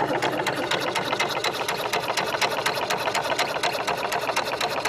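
HPA compressor pumping with a rapid, even clatter of piston strokes, working at about 4,500 psi near the end of filling a tank.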